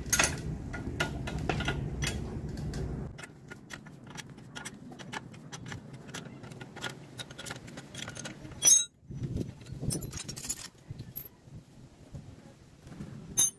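Irregular metallic clicks and clinks of hand tools and loose fittings as a motorcycle rear wheel is being taken off at its axle and brake linkage, with a sharper clank near the middle and another near the end. A low hum sounds underneath for the first three seconds, then stops.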